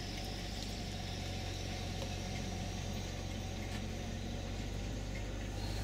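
Case IH 9370 four-wheel-drive tractor's diesel engine running at a steady low note as it passes slowly at close range, towing a large field cultivator.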